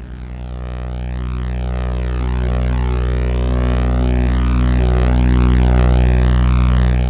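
MES Mini Red software synthesizer holding one low, sub-heavy note that swells steadily louder for about six seconds and starts to fade near the end, its upper overtones shifting and rippling as it is held.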